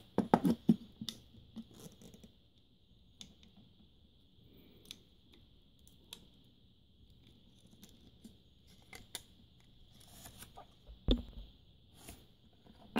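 Scattered small clicks and ticks of a Sony MiniDisc Walkman's plastic casing and circuit board being handled and worked apart by hand, with one louder knock about eleven seconds in.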